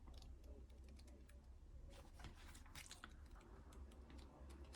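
Near silence with faint, scattered light clicks and rustles of oracle cards being handled on a table, over a low room hum.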